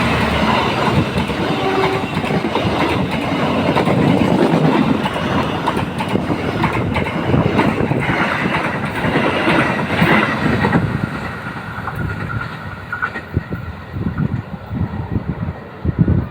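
A train passing at close range, its wheels clattering over the rails, the noise dying away about eleven seconds in.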